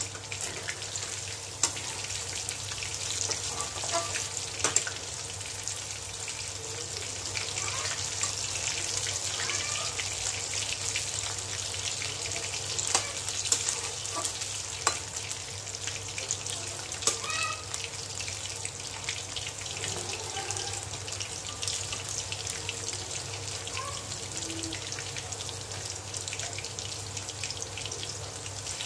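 Battered chicken pakoras deep-frying in hot oil in a metal kadhai: a steady sizzle, with a few sharp clinks of a metal spoon against the pan as they are turned.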